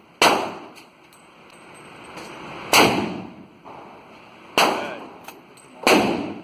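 Four gunshots at uneven intervals, each a sharp crack followed by a short echoing tail.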